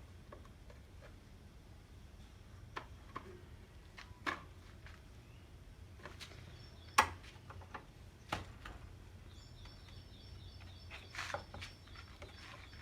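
Scattered clicks and knocks of hand work on a Yamaha MT motorcycle as its nuts and bolts are checked for tightness, the loudest a sharp knock about seven seconds in. Faint repeated bird chirps come in from about halfway.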